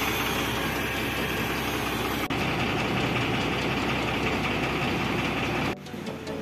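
Diesel truck engine idling steadily, with a brief break about two seconds in; the engine sound cuts off abruptly near the end.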